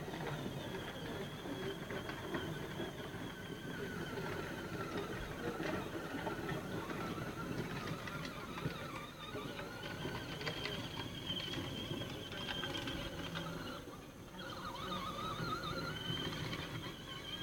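Electric motors and gearbox of a Peg Perego Polaris ride-on toy four-wheeler running, with a whine that rises and falls in pitch. It dips briefly about two thirds of the way through, then picks up again.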